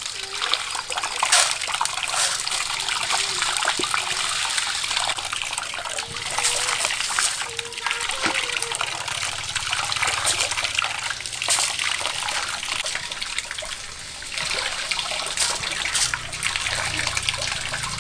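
Water running from a pipe into a metal basin while red beans are rinsed and stirred by hand, with irregular small splashes throughout.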